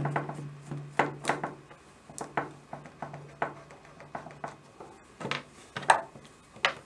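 Irregular clicks and knocks of hand tools and small metal parts: a screwdriver worked against the screws of a hand mixer's plastic casing and tools handled on a wooden table, the loudest knock about six seconds in.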